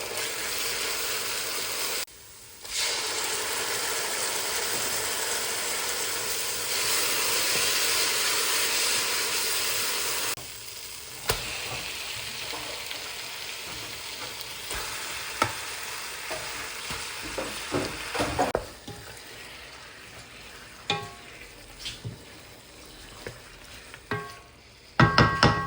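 Chicken curry frying and sizzling in a hot pan while it is stirred. A loud, steady sizzle fills the first ten seconds, with two brief breaks. It then quietens, with scattered spoon scrapes and clicks and a few loud clatters near the end.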